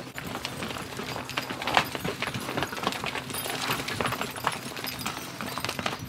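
Dairy cows moving about a dirt yard: irregular hoof steps and clicks, the sharpest about two seconds in, over a faint steady hum.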